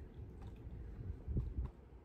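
Two soft low thumps with faint clicks, close together about a second and a half in, over a low rumble of handling noise.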